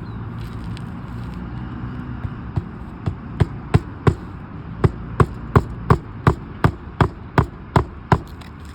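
Hand hammer striking on a shingle roof: about fifteen sharp, evenly paced blows, roughly three a second, with a brief pause midway. They start a couple of seconds in and stop shortly before the end.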